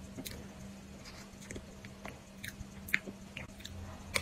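Close-miked mouth sounds of someone chewing and eating soft layered cream cake from a spoon: scattered wet clicks and smacks, with a sharper click about three seconds in and another near the end as a spoonful goes into the mouth. A faint steady hum runs underneath.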